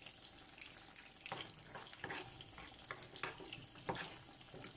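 Besan-battered fish deep-frying in oil in a karahi over a low flame: a steady sizzle with occasional crackles and pops.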